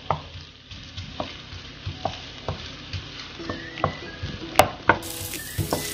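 Ginger strips sizzling in hot oil in a nonstick wok while a wooden spatula stirs them, with frequent sharp taps and scrapes of the spatula on the pan and one louder knock about four and a half seconds in.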